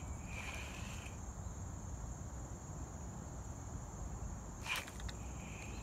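Insects trilling in one steady high note, with a second, lower buzz in the first second and again near the end. A single sharp click about four and a half seconds in.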